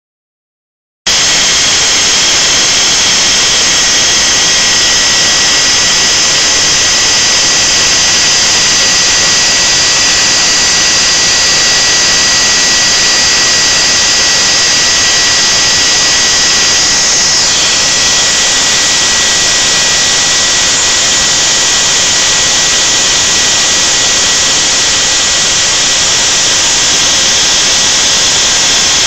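Spindle motor of a homemade CNC router running at high speed while its end mill carves polystyrene foam: a steady high-pitched whine over a rushing hiss. It starts about a second in, and its upper tone shifts slightly about two-thirds of the way through.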